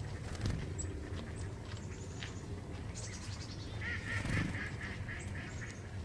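Wild birds calling: short high chirps scattered throughout, and a run of rapid, repeated honking-type calls starting about four seconds in and lasting under two seconds. Two soft low thumps, one about half a second in and one mid-run, over a steady low hum.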